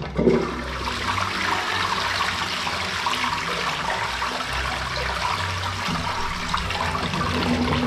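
Wall-hung toilet flushing: a rush of water starts suddenly just after the start and runs on steadily, carrying a wad of paper down the freshly unblocked drain.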